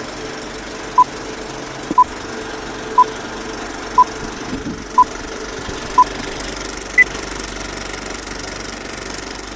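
Countdown beeps: six short beeps of the same pitch, one a second, then a single higher beep, over a steady low hum.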